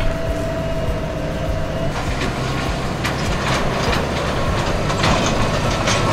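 Fendt Vario tractor running under way, towing a loaded round-bale trailer whose frame rattles and clanks. From about two seconds in, irregular knocks come every half second to a second over the steady rumble.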